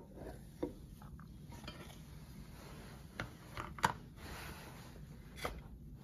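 Glass food-storage containers with plastic snap lids being handled and opened on a wooden desk: a lid worked off and scattered clicks and knocks of plastic and glass, the loudest about four seconds in.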